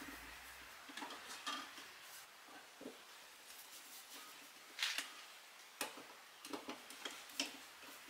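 Scattered faint clicks and light knocks of a plastic switch wall plate being handled and screwed on with a screwdriver, the loudest cluster about five seconds in.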